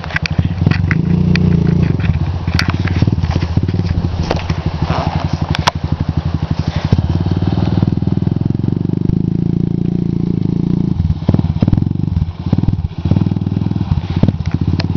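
Small ATV (quad) engine running under throttle as it is ridden through a shallow creek, its pitch and loudness rising and falling. The throttle is cut and reopened several times near the end. Sharp clicks and snaps come in the first few seconds.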